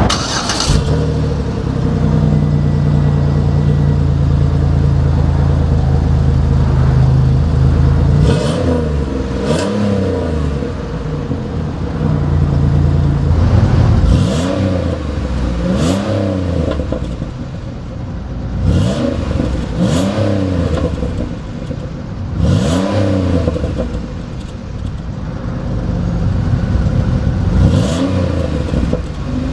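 2006 Chevrolet Impala LTZ's V6 engine and exhaust starting up, idling steadily for about eight seconds, then revved repeatedly in quick blips, each rising and falling in pitch, about eight times.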